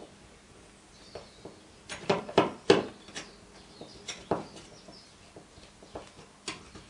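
Screwdriver working the screws of a plastic smoke-alarm mounting plate on a ceiling: scattered small clicks and scrapes, with a quick run of sharper clicks about two to three seconds in.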